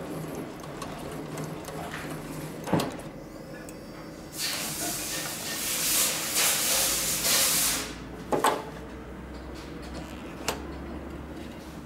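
Heavy-duty cylinder-arm leather sewing machine, its speed set by a hand controller, runs and stitches fast for about three and a half seconds near the middle. A steady low motor hum lies underneath. A sharp click comes before the stitching and a few clicks follow it.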